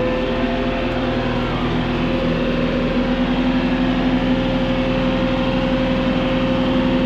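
Tractor engine running steadily at working speed, powering a round hay baler.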